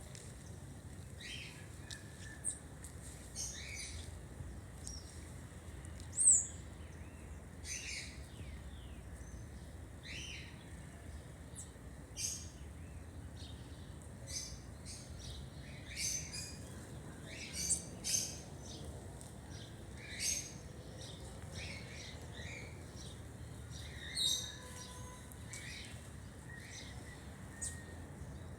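Birds chirping and calling in short, scattered notes, several birds overlapping, with a loud call about six seconds in and others around 18 and 24 seconds. A faint steady low rumble sits underneath.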